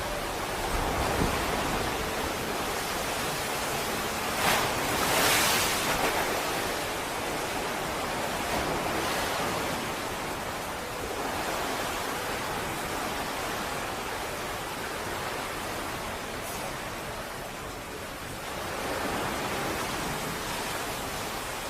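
Steady rushing noise of stormy wind and sea, with no distinct events, swelling louder about four to six seconds in and again near the end.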